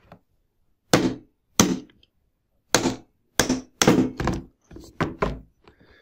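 Hammer striking a hard bolt set in the centre of a homemade bearing puller, about eight sharp blows, driving the ball bearing out of a vacuum cleaner motor's housing. The bearing is being replaced because it squeals.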